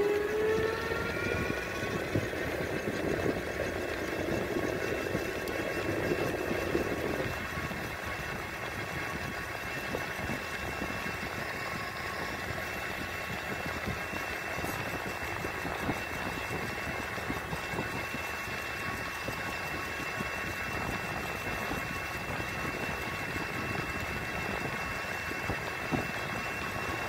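A vehicle's motor running as it travels. Its whine rises in pitch over the first second or two and then holds steady over a rush of road and wind noise.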